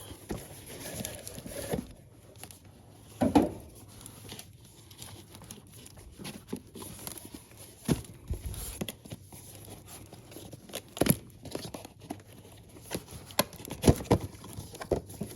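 A boxed speaker being opened by hand: cardboard flaps and packaging rustling and crinkling, with scattered short knocks as the box and its contents are handled, the loudest about three, eleven and fourteen seconds in.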